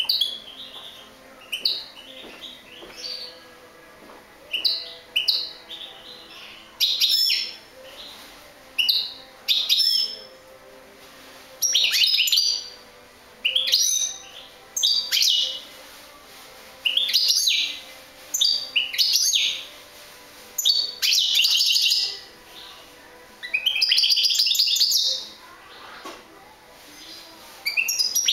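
European goldfinch singing: short bursts of quick, bright twittering notes every second or two, with longer run-on phrases now and then.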